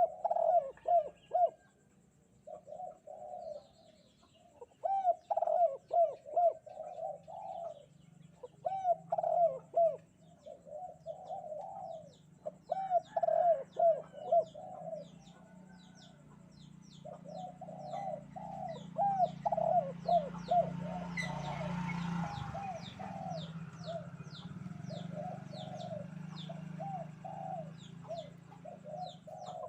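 Spotted dove (derkuku) cooing in repeated phrases of several notes, with short pauses between bouts. A low hum rises in the second half, and thin high chirps repeat about three times a second.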